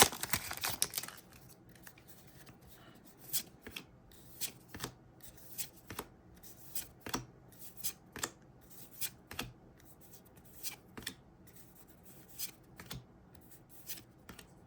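Trading cards from a freshly opened booster pack being slid and flicked apart one at a time, a sharp snap about every second. A foil wrapper crinkles briefly at the start.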